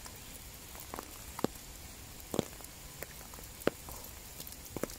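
Light rain falling: a steady hiss, with a few sharp ticks of single drops landing close by.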